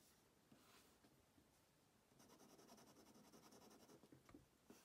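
Near silence, with faint scratching of a Pilot Custom 823 fine-nib fountain pen on notepad paper as it scribbles, mostly in the second half.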